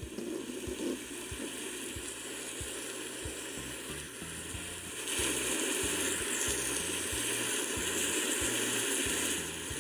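Recorded thunderstorm rain from a sleep-sounds app: a steady hiss of heavy rain that grows louder about five seconds in and eases back just before the end.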